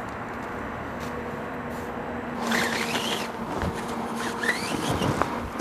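Fly rod being handled and drawn out of its cloth rod sock. From about halfway in there are squeaky rubbing and scraping sounds and a few light knocks, over a steady low hum.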